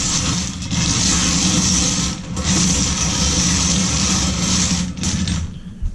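Wooden bingo balls tumbling and rattling inside a hand-cranked wire bingo cage as it is spun. The rattle stops near the end.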